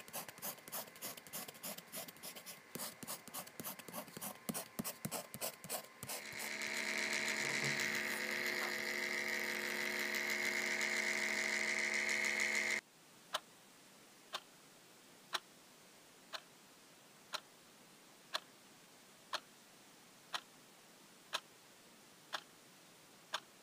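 Rapid scratchy strokes of a pen on paper for about six seconds. Then a loud, steady, high-pitched mechanical whir that cuts off suddenly about halfway through. After it, regular ticking about once a second.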